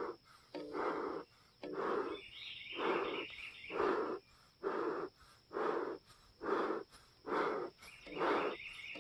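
Bee smoker's hand bellows pumped in a steady rhythm, about ten puffs of air a little over one a second, fanning the smouldering leaves and fresh pine needles to get the fire burning again.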